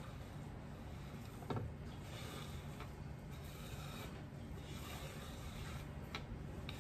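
Hand sweeping chopped broccoli across a bamboo cutting board and into a pot: a soft rubbing and scraping, with a few light knocks, over a steady low hum.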